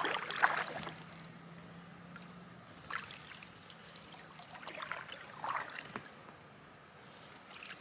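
Canoe paddling on calm water: a wooden paddle dipping and pulling through the water, with soft splashes and drips about three times, every couple of seconds.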